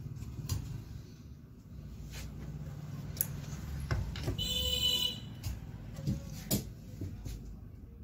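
Wooden tailor's square knocked and set down on a wooden cutting table several times, over a low steady rumble. About four seconds in, a short high beeping tone sounds for under a second.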